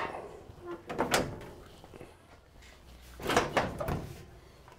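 Hinged steel hood panels of a Ford Model A being lowered and shifted by hand: a few knocks and clunks of sheet metal, one about a second in and a cluster of clunks near the end.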